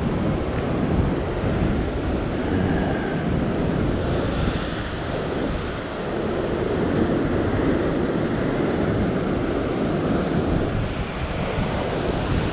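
Ocean surf breaking and washing over a rock shelf in a steady rush, with wind buffeting the microphone.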